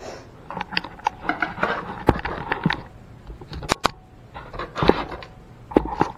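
Camera being handled and repositioned: rustling with irregular sharp clicks and knocks at uneven intervals.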